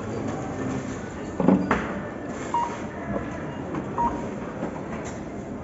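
A few short electronic beeps, spaced a second or two apart, over steady background clatter and hum, like a shop's checkout.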